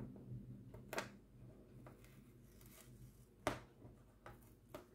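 Quiet handling of craft-kit packaging: a few sharp clicks and light rustles, the clearest about a second in and again at about three and a half seconds, over a faint low steady hum.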